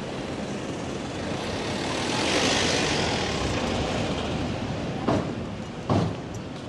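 A vehicle passing by, its noise swelling to a peak about two and a half seconds in and then fading, with two sharp knocks near the end.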